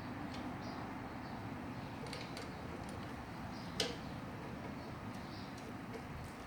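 Small clicks and taps of metal parts being handled while a lawnmower carburetor is fitted back onto the engine, with one sharper click a little before four seconds in, over steady background noise.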